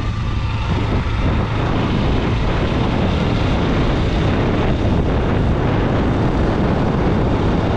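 Sport motorcycle ridden at steady speed: a constant engine drone under rushing wind noise.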